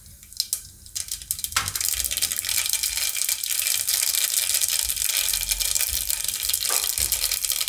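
Mustard seeds sizzling and crackling in hot oil in a pressure cooker, the first step of a tempering. A dense hiss full of sharp little crackles starts about a second in and keeps on steadily.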